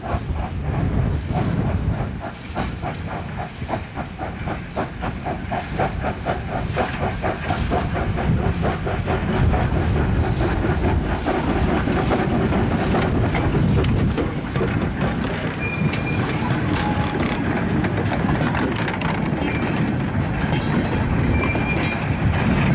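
Steam locomotive hauling a train past: a quick regular beat at first, then the rumble and clatter of the train on the track growing louder about a third of the way in, with steam hiss.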